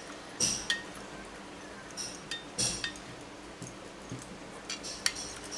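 Stainless steel bowls clinking and knocking lightly, several separate times, as they are handled and set down while their insides are brushed with oil.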